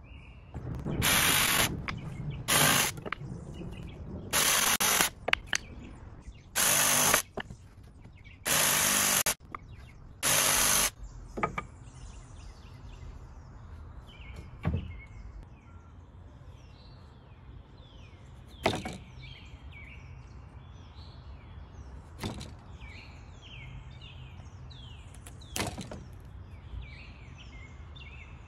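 Cordless drill run in six short bursts, drilling into 2x4 lumber. Afterwards, birds chirp faintly and there are four single sharp knocks.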